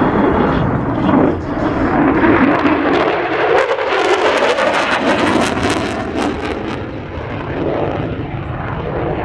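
Jet roar of an F-35A Lightning II's single Pratt & Whitney F135 afterburning turbofan as the fighter flies past, loud and steady, with a tone that sweeps up and down as it passes and a harsh crackle through the middle.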